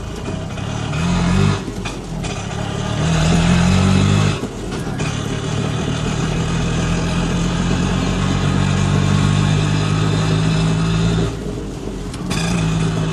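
Motorbike-racing arcade game's engine sound effect through its speakers: a simulated motorcycle engine revving up twice in the first few seconds, then holding a steady drone, with a short drop about eleven seconds in as the rider steers the game.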